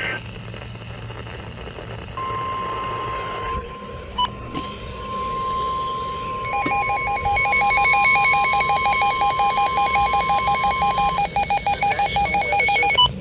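NOAA Weather Radio warning alarm: a single steady tone starting about two seconds in and lasting about nine seconds. From about six and a half seconds a second, harsher alarm beeps rapidly, about four beeps a second, overlapping it and running on after the steady tone stops.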